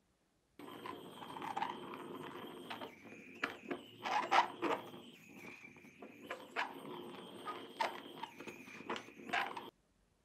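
Small handheld gas torch flame hissing steadily, with a few sharp clicks scattered through it; the sound cuts in about half a second in and cuts off abruptly near the end.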